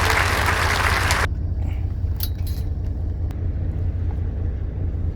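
Fishing boat's engine running with a steady low rumble. A loud rush of applause-like noise cuts off abruptly about a second in, and a few light clicks follow.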